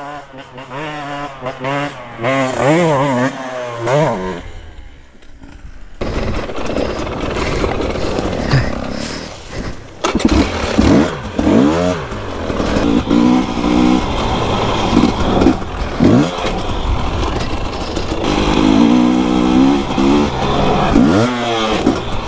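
Two-stroke enduro motorcycle engine revving through repeated throttle blips, its pitch rising and falling quickly. About six seconds in the sound changes abruptly to louder engine running with a noisy rush, with sharp revs near the middle and again near the end.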